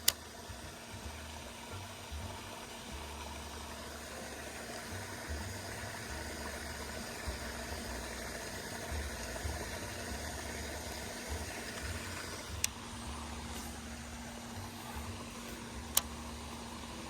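Wind buffeting the microphone in uneven low gusts over a steady background hiss, with a faint steady hum joining about two-thirds of the way in and two sharp clicks in the second half.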